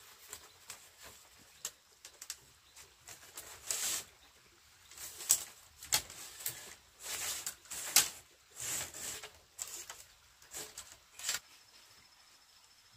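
Split bamboo strips being handled and slotted into a bamboo wall frame: irregular scraping and rustling with sharp clicks and knocks of bamboo on bamboo, stopping shortly before the end.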